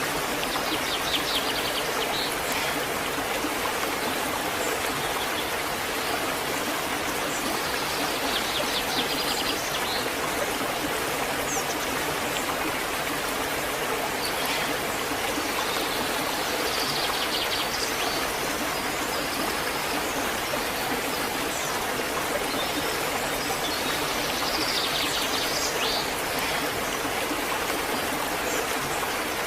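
Waterfall rushing steadily. Small birds chirp in short bursts a few times over it.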